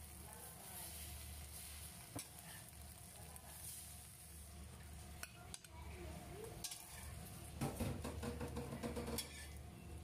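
Metal spatula scraping and tapping in a stainless steel wok over a faint sizzle of frying egg and enoki mushrooms, with a few sharp clinks. Near the end there is a busier run of scraping and clatter as the omelette is slid onto a metal plate.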